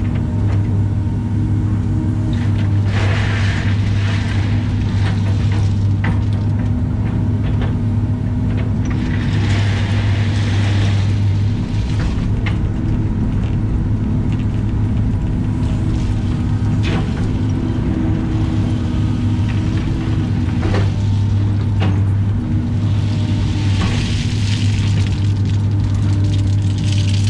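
Caterpillar excavator's diesel engine running steadily, heard from inside the cab as a strong, even low hum. Over it come occasional sharp knocks and a few brief rushes of noise as the bucket drags and drops gravel to spread driveway rock.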